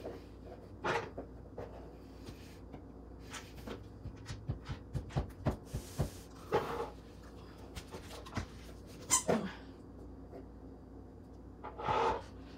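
Small plastic toys and glass nail polish bottles being set down on and in a cardboard box: a string of light knocks and taps, with a few brief louder noises about a second in, around six and nine seconds in, and near the end.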